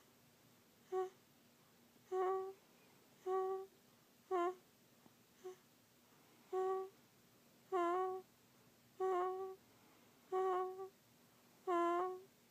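A sleeping young child snoring: short, high-pitched squeaky snores, about one a second.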